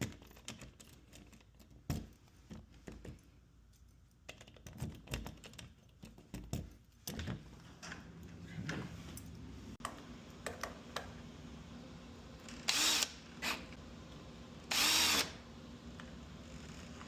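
A freshly rekeyed Kwikset smart lock being tested: small clicks and knocks of the key and lock parts being worked, then two short, louder sounds of about half a second each, a couple of seconds apart, near the end.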